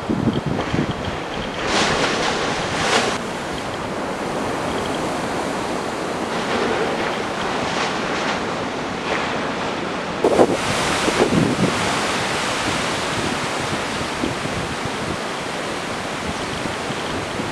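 Ocean surf washing and breaking steadily, with wind buffeting the microphone; louder surges of breaking water about two seconds in and again about ten seconds in.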